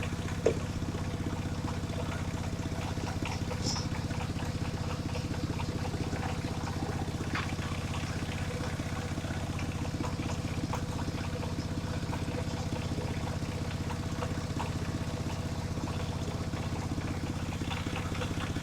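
Engine of a mobile circular sawmill running at a steady, unchanging speed, with one brief sharp knock about half a second in.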